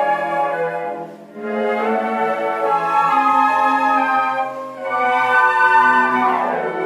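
Flute orchestra playing sustained chords, with a short break about a second in and a quick falling run near the end.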